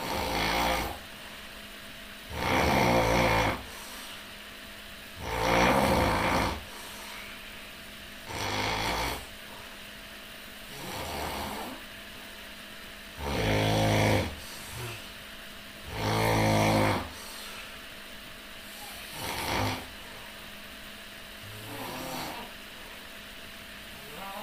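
Loud snoring: a rattling, buzzy snore about every two and a half to three seconds, nine in all, some much louder than others.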